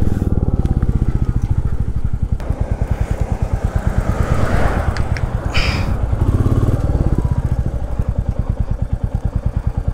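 Motorcycle engine running with an even low pulse while the bike is slowed and held at idle. Partway through, a hiss rises in pitch and fades, and a short high burst follows.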